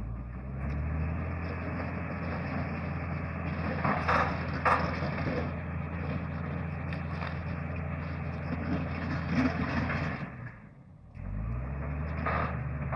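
Bulldozer diesel engine working under load, revving up just after the start and then running hard, with two sharp knocks about four seconds in. The engine sound drops away briefly near the end, then revs up again.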